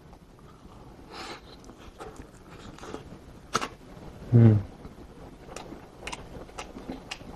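Quiet eating and handling noises from pulling apart and eating a braised pork rib by hand: scattered small clicks and smacks, with one short low vocal 'mm' from the eater about halfway through.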